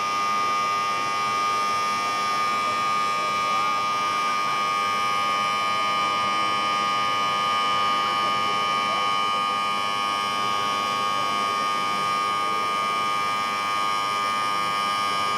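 A loud, steady electronic buzzing tone made of several unchanging pitches, the strongest a mid-high whine. It cuts off suddenly at the end.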